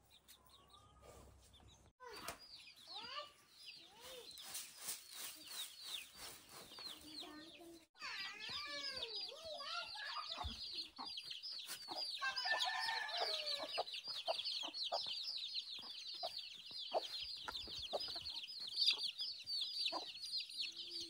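Chickens clucking, with a dense, continuous run of quick high chirps from about eight seconds in.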